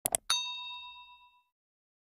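Two quick mouse-click sound effects, then a single bright bell ding that rings out and fades over about a second: the notification-bell sound effect of a subscribe animation.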